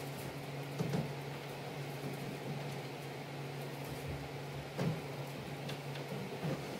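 Box-style food dehydrator's fan running with a steady hum, while trays are slid into it, knocking against the rack twice, about a second in and again near five seconds.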